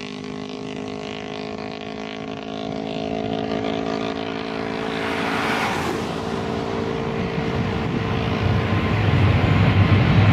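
Boeing 777-200ER jet engines spooling up to takeoff thrust at the start of the takeoff roll. An engine whine of several steady tones fades as a deep jet roar builds and grows steadily louder.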